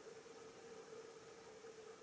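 Near silence: a faint, steady hiss with a steady hum underneath.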